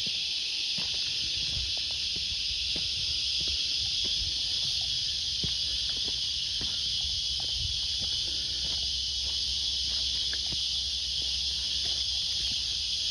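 Steady, high-pitched insect chorus droning without a break in the bush, with faint irregular crunches of footsteps on a sandy, leaf-strewn track.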